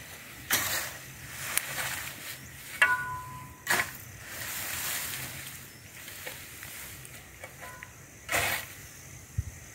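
Long-handled hoe and shovel scraping and dragging cut weeds over bare soil. There are a few separate strokes, several seconds apart.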